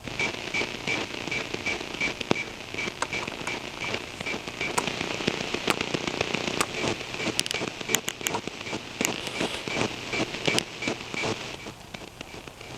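Radio receiver tuned to a signal: a steady series of short high beeps, about three a second, over crackling static with sharp clicks. The beeps fade near the end.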